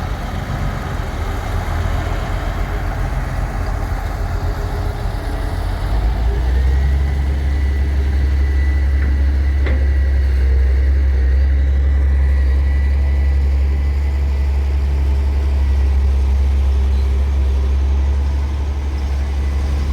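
Heavy diesel engine of earthmoving machinery running steadily, with a deep hum that grows louder and steadier about six seconds in. A faint thin whine runs for several seconds midway, and there is a single click near the middle.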